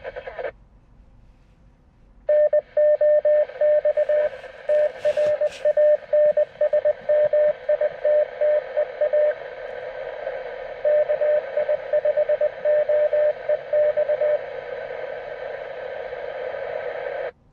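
Morse code from a hidden fox transmitter, heard through a handheld ham radio's speaker: a single mid-pitched tone keyed in dots and dashes over a steady radio hiss, in two runs with a short break between. She was told the code spells CQ. The hiss and tone cut off abruptly near the end.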